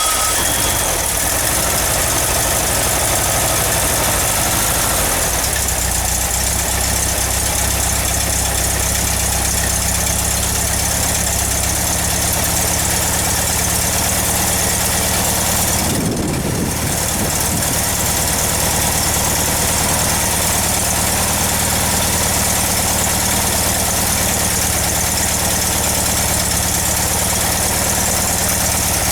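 Freshly rebuilt 1776 cc Volkswagen air-cooled flat-four on an engine stand, running steadily just after a cold start, through bazooka exhaust tips. About sixteen seconds in its speed dips briefly and picks back up.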